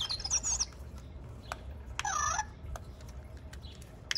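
Zhu Zhu Pets electronic toy hamster squeaking and chirping through its small speaker: a quick run of high chirps at the start and one longer rising-and-falling squeak about two seconds in. A few sharp clicks come from its mechanism, which the owner blames on the shell halves being screwed on too tight.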